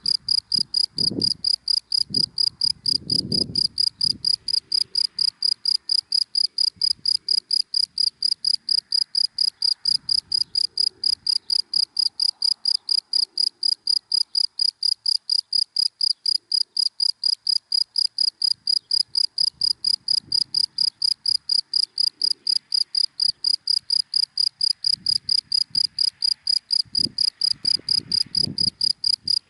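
A single cricket chirping steadily in short, evenly spaced chirps, about three a second. Faint low rumble of passing cars underneath at the start and again near the end.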